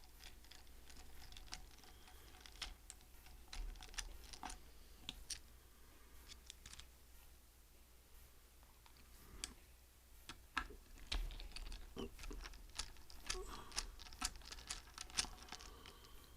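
Faint, irregular light clicks and taps of a small Torx driver being worked on the screws of a hard drive's metal case, coming more often near the end.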